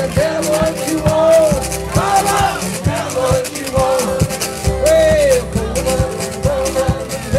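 Live acoustic blues: a strummed acoustic guitar with a Dubl Handi metal washboard scraped and tapped in a fast, steady rhythm of clicks, and pitched lines that slide up and down above them.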